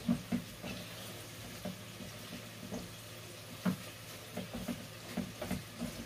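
Spatula stirring and scraping flour toasting in a metal pot for a soup roux, with irregular knocks against the pot and a faint sizzle underneath.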